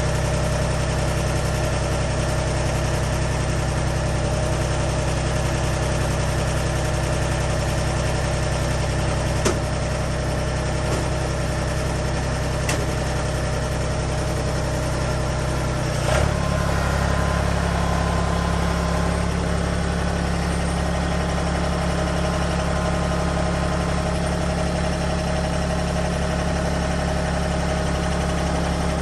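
Engine of a Lucas Mill 10-30 swingblade sawmill running steadily, with a sharp click about nine seconds in and a brief change in its note about sixteen seconds in, after which it settles to a slightly different steady pitch.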